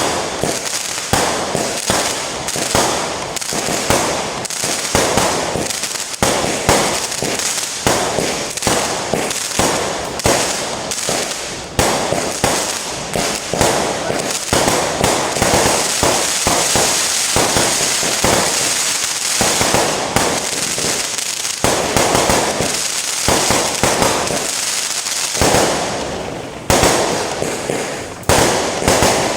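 Fireworks going off in a nonstop barrage of rapid bangs and crackle, with a stretch of denser crackling about halfway through.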